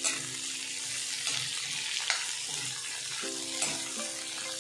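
Chopped onion, capsicum and green chillies sizzling in a little hot oil in a metal kadhai while being stir-fried with a metal ladle, which scrapes and knocks against the pan a few times.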